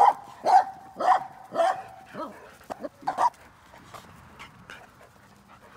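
Dog barking during rough play with another dog: about seven sharp barks, roughly two a second, then only faint scuffling sounds for the last couple of seconds.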